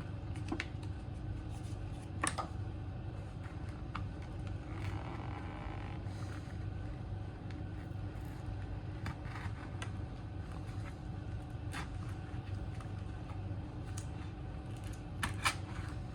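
Small clicks and a brief scrape about five seconds in as the plastic back cover of a Samsung Galaxy A15 is pried open, over a steady low hum.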